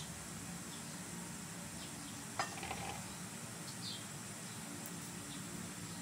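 Quiet room tone with a steady low hum, a single sharp click about two and a half seconds in, and a few faint, short, high chirps.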